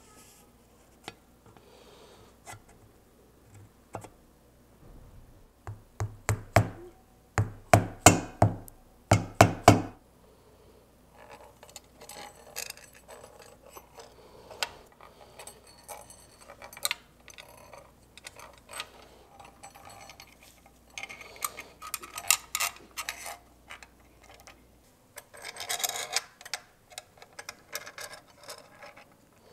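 Metal parts of a Driver Line 1 HP single-phase electric motor knocking and clicking as the stator housing and end bells are fitted together by hand. A quick run of sharp knocks about six to ten seconds in is the loudest part. Scattered clicks and rubbing follow, then a brief scraping rustle near the end.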